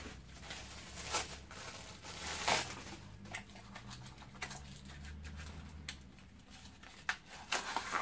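Plastic packaging crinkling and rustling, with a few separate light clicks and knocks, as vacuum cleaner parts are unpacked.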